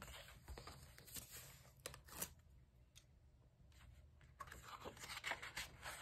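Faint rustling and crinkling of colouring-book pages being handled and turned. There are a few sharp paper crackles in the first couple of seconds, then a longer rustle as a page is turned near the end.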